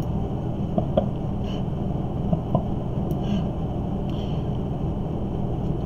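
Steady low room hum and hiss with a few faint, brief ticks scattered through it.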